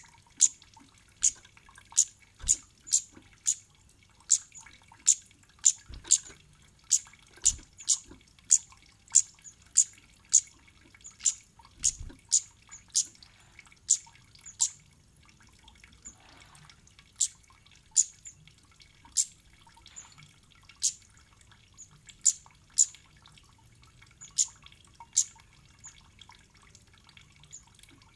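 Kemade bird's short, sharp, high-pitched 'cit' chip calls, repeated irregularly about one or two a second, with a gap of a couple of seconds about halfway through.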